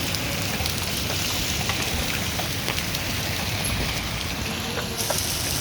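Heavy rain falling steadily: a dense, even hiss with scattered sharp ticks of drops striking.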